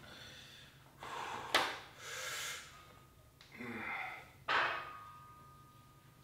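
A person breathing hard from exertion: four or five loud, rough breaths in and out, some starting sharply, over the first five seconds, then quieter.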